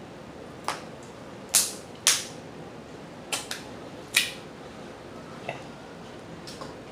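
Crab shells cracking and snapping apart by hand: about eight sharp, short cracks at uneven intervals, the loudest two close together about one and a half to two seconds in.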